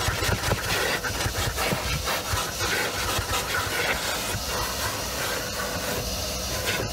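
Vacuum cleaner running with its nozzle worked over the rear footwell carpet, a steady rushing of air with crackly scraping and rattling as it passes over the carpet.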